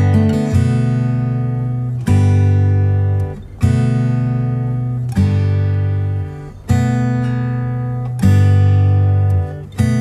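Background music: acoustic guitar chords strummed about every second and a half, each left to ring and fade before the next.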